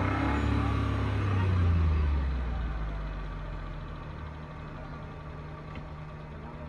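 Suzuki Mehran's small three-cylinder petrol engine revved once: it swells to its loudest just under two seconds in, then falls back to a steady idle.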